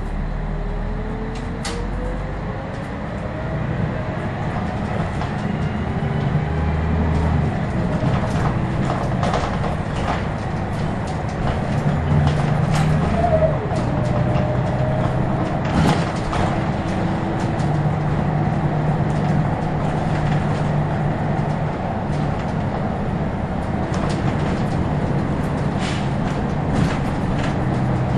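Interior sound of a Scania L113CRL bus's rear-mounted 11-litre six-cylinder diesel as the bus pulls away and drives on, the engine note rising in pitch over the first few seconds and shifting as it goes. Frequent clicks and rattles from the bus's body and fittings run through it.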